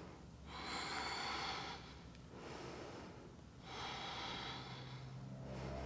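A woman breathing audibly through the nose while holding a deep yoga pose: slow, drawn-out breaths, two long ones with a fainter one between.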